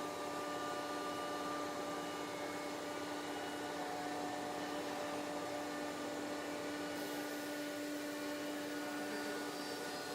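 CNC router spindle running steadily: a constant whine over a noisy machine hum, with no change in pitch.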